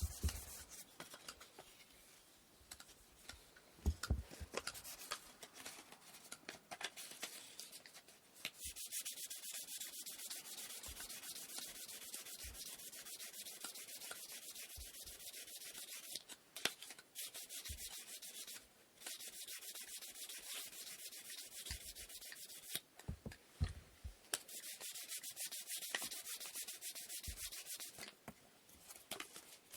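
Sandpaper rubbed back and forth by hand over wooden inkle loom parts, in quick, even strokes that stop briefly every few seconds. There are a few light knocks.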